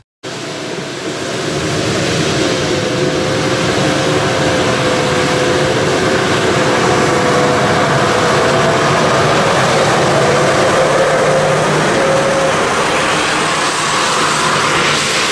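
Off-road Nissan Patrol's engine held at high revs under load as it drives up a muddy bank: a steady, loud drone with a slightly wavering tone over a wash of noise. It comes in just after a split second of silence.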